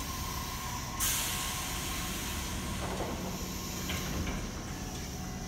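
Tobu 60000 series six-car electric train pulling in and slowing at the platform, with a steady motor hum. A sudden loud hiss comes in about a second in and fades over the next couple of seconds.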